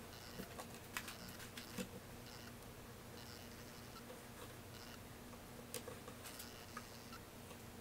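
Faint handling noise: a few light clicks and taps as a book and its paper cover are pressed and adjusted in a bench vise, over a low steady hum.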